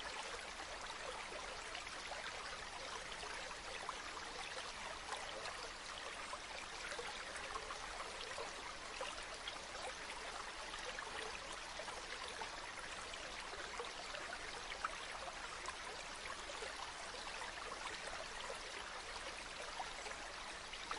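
A small stream or river running over stones, a steady trickling and babbling of water.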